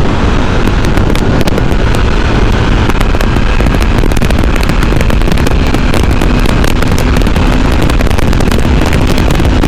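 Heavy wind buffeting on the microphone, loud and crackling, over a Yamaha FZ V3's single-cylinder engine pulling hard at about 100 km/h.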